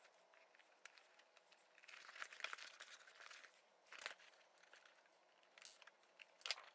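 Faint rustling and creasing of leather and suede lining as a leather doctor's bag is handled and folded, with a couple of sharp clicks, one about four seconds in and one near the end.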